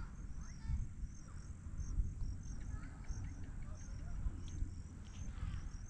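Crickets chirping: short, high chirps repeating steadily several times a second, over a low rumble.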